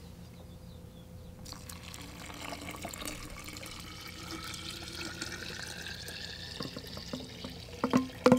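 Cold water poured in a steady stream from a plastic bottle into a half-gallon glass mason jar of acorn flour. The pour starts about a second and a half in, and its note rises slowly as the jar fills.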